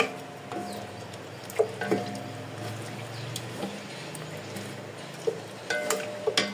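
Wooden spoon stirring chicken pieces in yogurt and masala in a large metal pot, making a wet, sloshing sound. The spoon knocks against the pot's side several times, and each knock rings briefly.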